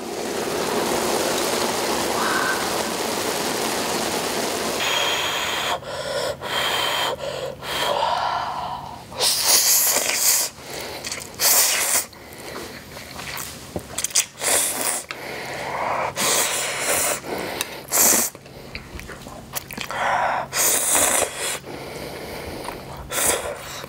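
A person slurping spicy instant ramyeon noodles off chopsticks, many sharp, airy slurps a second or two apart. Before the slurping starts there are about five seconds of steady hiss.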